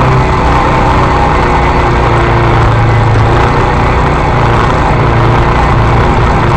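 Arctic Cat 250 ATV engine running loud and continuous at a fairly steady pitch while the machine is ridden.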